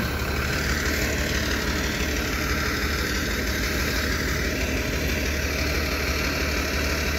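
Flatbed tow truck's engine running steadily at idle while its winch draws a pickup backwards up the tilted deck.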